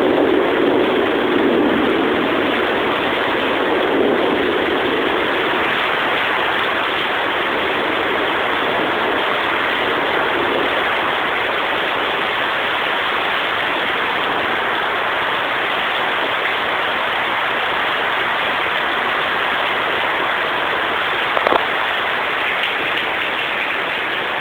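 Heavy rain pouring down steadily. A rumble of thunder dies away over the first few seconds, and there is a single brief knock near the end.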